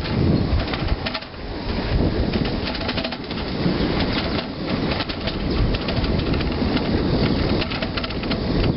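Bicycle rolling along a concrete path: a steady rush of wind on the microphone and low rumble, with rattling and many short clicks from the moving bike.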